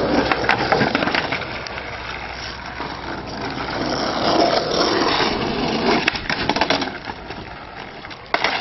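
Skateboard wheels rolling on asphalt, with a few sharp clacks of the board on wood and pavement.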